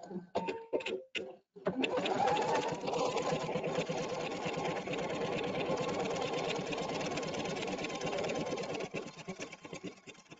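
Pfaff embroidery machine stitching a patchwork piece down in the hoop. A few short clicks come first, then the machine runs steadily for about seven seconds and stops near the end.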